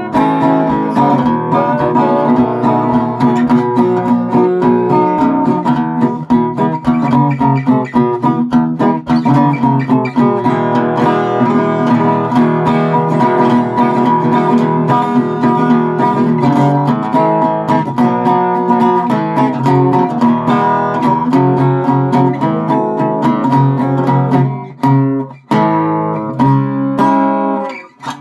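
Rosewood six-string acoustic guitar strummed quickly, a continuous run of ringing chords. It breaks off briefly a few times near the end.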